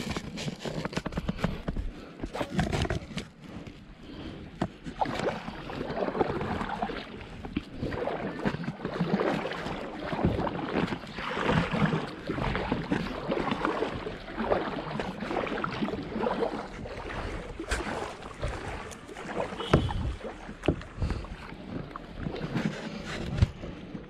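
Kayak paddle strokes splashing and dipping in lake water, one after another at an uneven pace.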